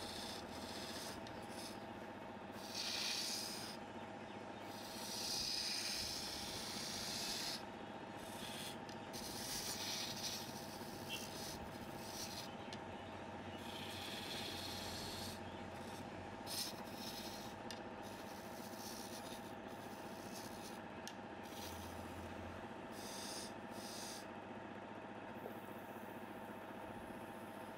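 Wood lathe running with a steady motor hum while a tool works against the spinning wood, giving a rubbing, rasping noise that swells and fades every few seconds.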